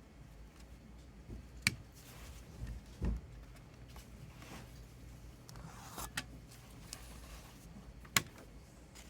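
Handling of a CD single's packaging: sharp clicks about a second and a half in, around six seconds in and near eight seconds in, a dull thump about three seconds in, and soft rustling between them.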